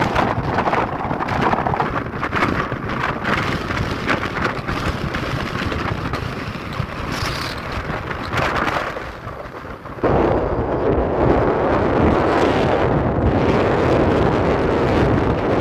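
Strong mountain wind gusting and buffeting the microphone, a rough rumbling rush that eases briefly before turning suddenly louder about ten seconds in.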